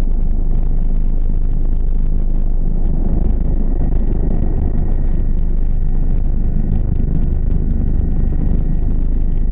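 Helicopter turbine engine and main rotor heard from inside the cockpit as it comes in to land: a loud, steady rumble with a faint high turbine whine.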